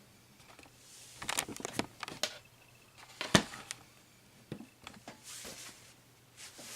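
Handling noise: scattered light clicks and rustles, with one sharp tap about three seconds in.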